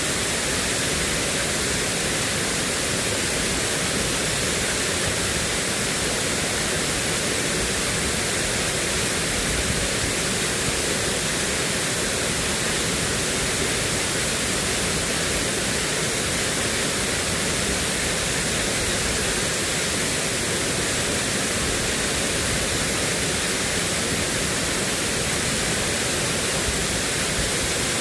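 Heavy rain falling: a steady, unbroken hiss that does not change.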